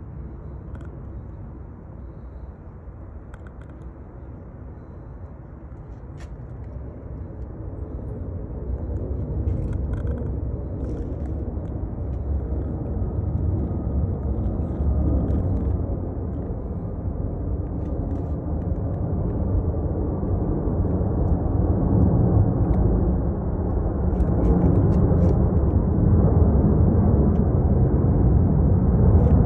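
Low rumbling background noise that grows steadily louder.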